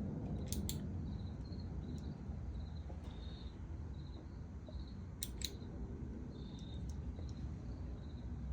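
Two quick double clicks about five seconds apart, over a steady low hum and short high chirps repeating every half second or so. The engine does not crank or run.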